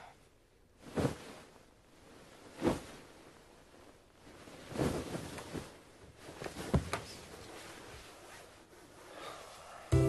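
Duvet and bedclothes rustling as a person shifts and turns over in bed: a handful of short soft swishes a second or two apart. Saxophone music comes in right at the end.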